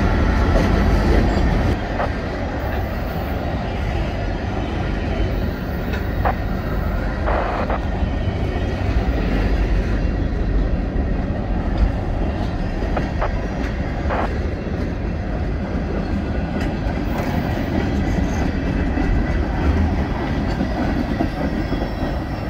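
Freight cars (covered hoppers, a flatcar and a gondola) rolling past close by: a steady rumble and clatter of steel wheels on rail, with a few short squeals.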